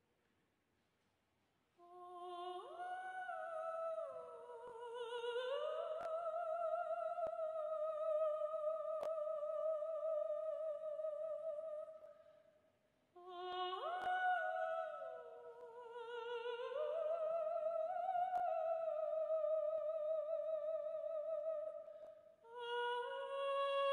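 A single voice in the show soundtrack singing long, held notes with a slow vibrato, sliding up into each pitch. Phrases begin about two seconds in, again about halfway, and once more near the end.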